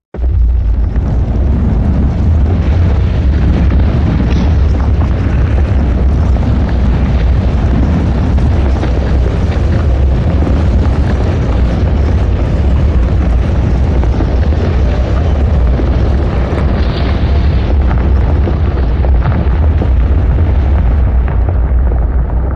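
Earthquake sound effect: a loud, deep, continuous rumble that starts abruptly, with faint crackling over it.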